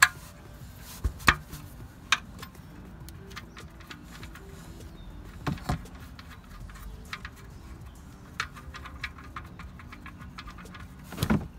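Metal clicks and knocks of a 14 mm box-end wrench on a car's oil-pan drain plug as the plug is loosened and then turned out by hand: a few sharp clicks spread out, with light ticking between them.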